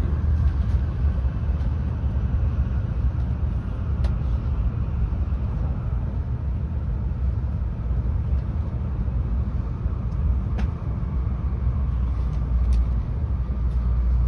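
Tokaido Shinkansen train running, a steady low rumble heard from inside the passenger car, with a few faint sharp clicks.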